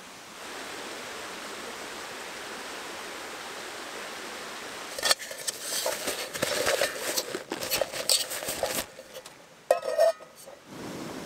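Metal camp-stove gear clinking and clattering as a small backpacking gas stove and its pot are handled and set up on a Jetboil gas canister, in a dense run of sharp clicks for about four seconds after a steady hiss. A short ringing squeak comes near the end, then a steady low hiss begins, as of the burner being lit.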